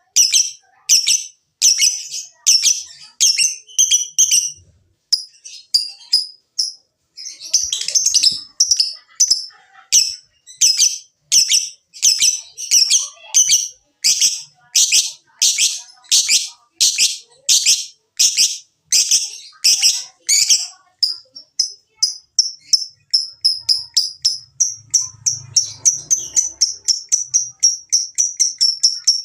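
Lovebird calling in shrill, high chirps repeated about twice a second, then, about two-thirds of the way through, breaking into a faster unbroken run of chirps: the long chattering 'ngekek' that keepers try to trigger.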